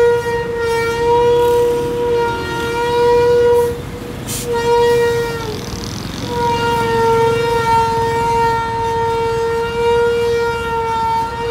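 A vehicle horn held in long steady blasts, cut off briefly twice, over the low noise of engines in slow traffic.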